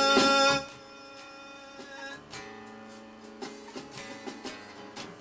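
A held note of the band's music breaks off abruptly under a second in. Then an electric bass is plucked softly, a few single notes ringing quietly, as the bass line's note is worked out.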